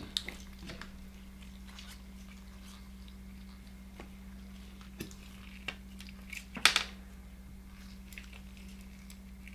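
Light handling clicks over a steady low hum, with one short sharp clatter about two-thirds of the way through as metal digital calipers are picked up off a wooden cutting board.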